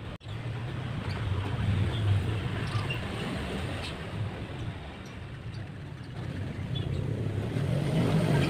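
Steady low hum of a distant motor vehicle's engine, growing louder near the end.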